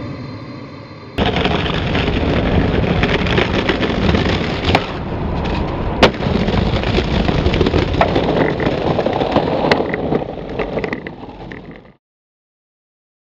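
Explosion-type sound effect: a fading ringing tone, then a sudden blast about a second in that runs on as a loud, sustained rumble with a few sharp cracks, fading out near the end.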